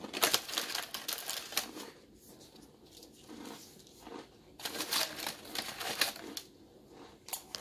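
Plastic snack packaging crinkling and rustling as it is handled, in two spells: the first two seconds and again around five seconds in.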